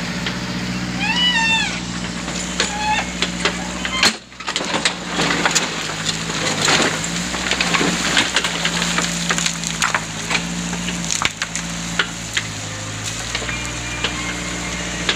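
Backhoe's diesel engine running steadily while its bucket digs and loads sand and stones, with many crunching, clattering knocks.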